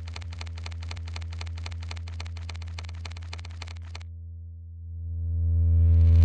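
Synthesized closing-ident sound design: a steady low drone under fast, even ticking pulses that stop about four seconds in, then a rising whoosh swelling toward the end.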